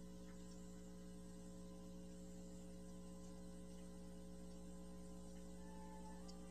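Faint steady electrical hum: a low mains-type buzz of a few unchanging tones, with no other sound.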